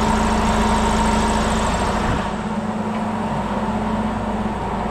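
An engine running steadily with an even hum; its deep low rumble drops away a little after two seconds in while the hum carries on.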